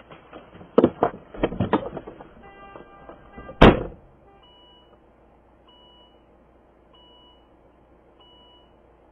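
Knocks and thuds from a car's cabin, then a car door slammed shut a little under four seconds in. After the slam, a short electronic warning chime beeps steadily about once every 1.2 seconds.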